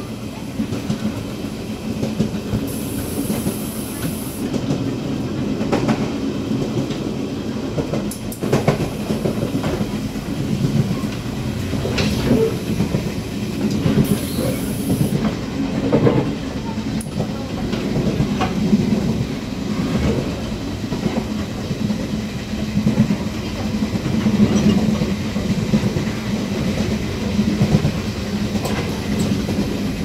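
Running noise in the gangway between two Tze-Chiang express passenger cars in motion: a steady low rumble with occasional sharp knocks.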